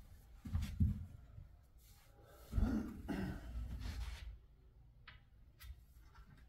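Quiet movement and handling sounds at a snooker table as the balls are re-spotted: a few low thuds about half a second in and again midway, then two sharp clicks about five seconds in.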